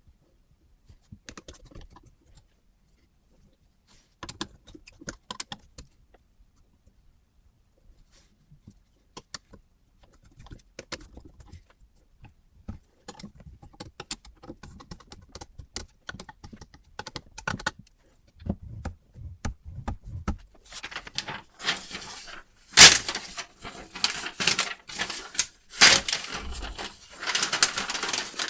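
Metal parts of a knife-sharpening system being handled and set up: scattered clicks and taps, becoming louder and denser clattering and scraping in the last several seconds.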